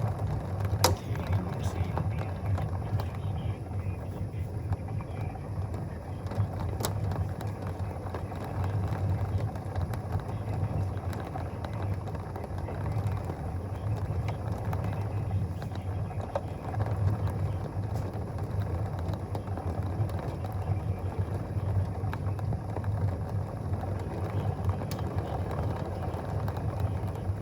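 Thunderstorm wind gusting, a low, uneven rumble of air noise that rises and falls in gusts, with a few faint clicks.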